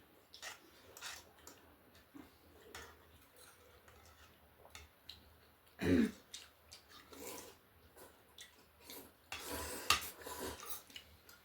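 Close-up eating sounds: a person chewing, with small wet mouth clicks, a brief throat sound about six seconds in and a noisier run of slurping or breathing near the end.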